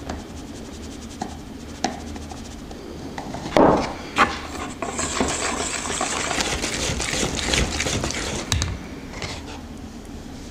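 Flour tipped from a plastic measuring jug into a bowl, with two loud knocks about three and a half seconds in, then a wire whisk beating the flour into a wet dough batter in the bowl for about three seconds, a fast scratchy rattling that stops near the end.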